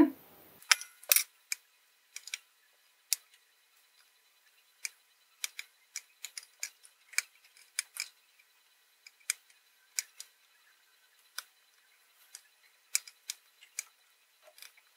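Small, sharp, irregular clicks and taps from surface-mount soldering work: metal tweezers and a soldering iron tip touching a circuit board and the tiny LEDs on it. The clicks come singly or in quick pairs every half second to a second or so.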